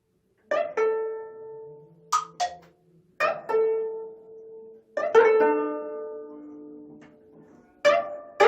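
25-string gayageum ensemble playing sparse plucked notes and chords that ring and slowly fade. It begins after a brief silence, and pairs of short, sharp plucked accents about a third of a second apart break in between the ringing chords.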